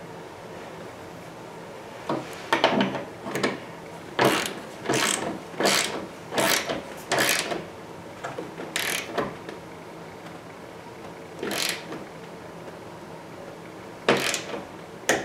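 Socket ratchet wrench clicking in short spells as the rear hatch bolts are snugged down after realignment.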